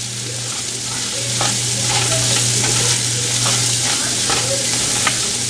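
Chopped mango pieces frying in sesame oil on a slow flame, with a steady sizzle, while a spatula stirs and scrapes through them in the pan with scattered clicks. A low steady hum runs underneath.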